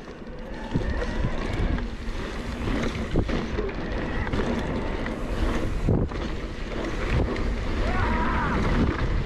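Wind rushing over the microphone of a mountain bike under way on a trail, a steady loud rush that builds up over the first second. A few sharp knocks from the bike over rough ground come through it.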